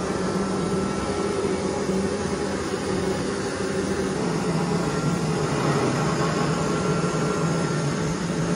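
Handheld blowtorch flame burning steadily with a low hum, heating the inside of a PVC pipe to soften it; the flame shuts off abruptly near the end.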